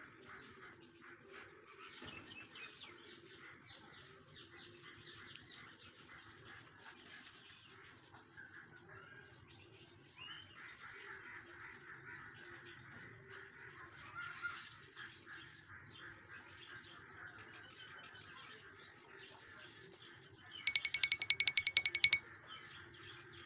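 Birds chirping in the background, faint and scattered. About 21 seconds in, a loud, fast, high-pitched rattle of evenly spaced ticks lasts about a second and a half.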